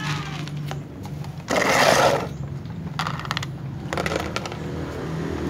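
Clear plastic food tubs and dry cat kibble being handled: a loud rustling clatter about a second and a half in, then a few sharp clicks.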